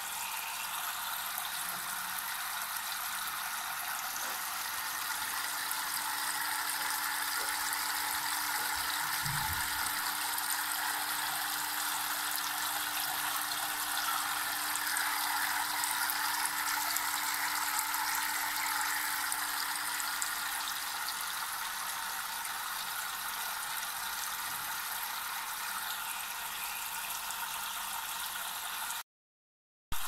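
Many thin streams of water falling from the spillways of a two-tier tabletop waterfall fountain into the basins below, a steady splashing. A faint steady hum runs through the middle stretch, and the sound cuts off abruptly just before the end.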